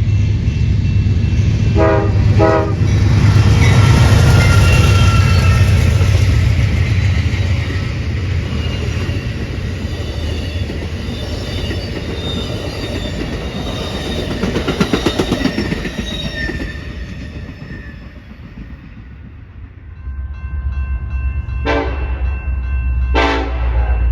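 Train horn sounding two short blasts as a train runs past with a heavy rumble that fades away, then two more short horn blasts near the end.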